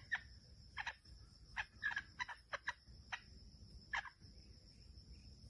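Red junglefowl decoy hen clucking: a run of short, sharp clucks in uneven groups that stops about four seconds in, over a steady high-pitched whine.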